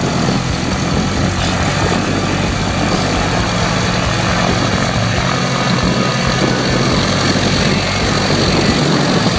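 Ultralight airplane's engine and propeller running steadily and loud.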